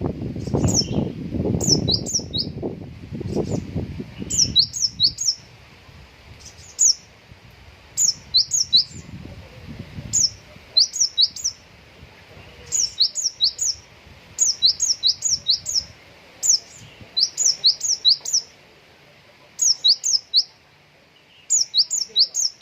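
Konin songbird singing in quick groups of three to five high, sharp sweeping notes, repeated every second or two: the bird's mimicked cinereous tit (gelatik batu) phrases. A low rumble runs under the song for the first few seconds.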